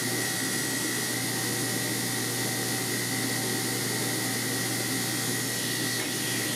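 Belt grinder running with a steady whine and hum while the steel bit of a double-bit axe is sharpened against its abrasive belt.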